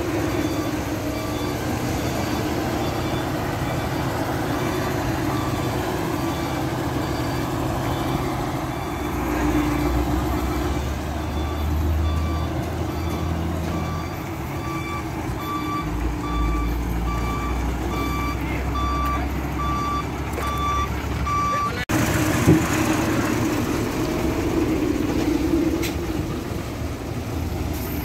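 Diesel engine of a Nissan CD320 concrete pump truck running, with a deeper low rumble through the middle, while an electronic beeper sounds at an even pace, growing louder until it stops suddenly about 22 seconds in.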